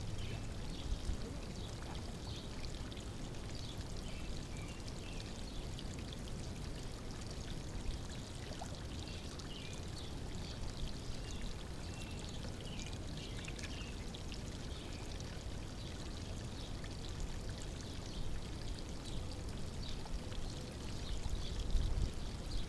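Steady running water of a backyard pond, trickling and pouring, with faint scattered small ticks over it.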